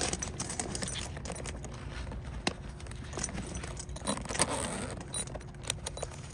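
A Veto Pro Pac Tech Pac backpack tool bag being handled: irregular small clicks, scrapes and rustling as its back section is fiddled with to get it open.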